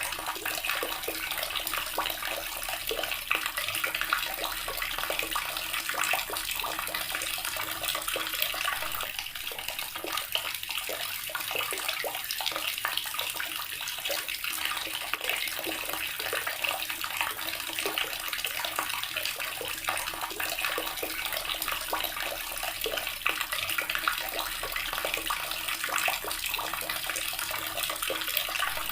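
Water tap running steadily, the stream splashing into water below.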